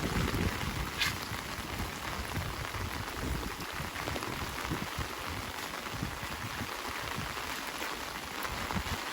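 Heavy rain falling steadily on surfaces, an even hiss, with a sharp tick about a second in.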